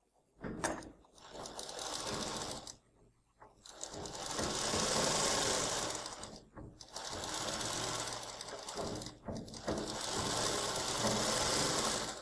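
Sewing machine running in four spells with short pauses between, as fabric is fed through to put an edge stitch along the neckline of a dress; it starts about half a second in and stops near the end.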